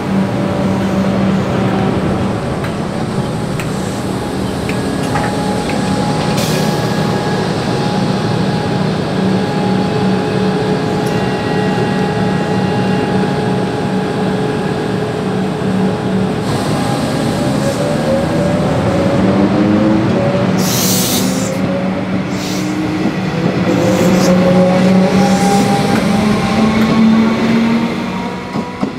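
Electric suburban train at the platform: a steady hum from its equipment, then from about halfway a rising whine of the traction motors as it pulls away. There is a short hiss about two-thirds of the way through, and the sound falls away near the end.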